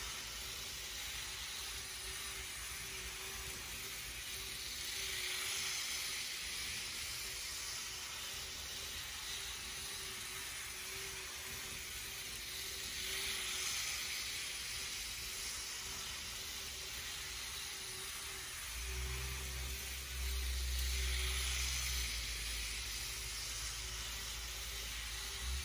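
N scale Intermountain model locomotive and Micro-Trains/Atlas cars running laps on Kato Unitrack: a steady hiss of the small motor and the wheels on the rails, with a faint hum. The hiss swells about every eight seconds as the train passes close. A low rumble comes about three-quarters of the way through.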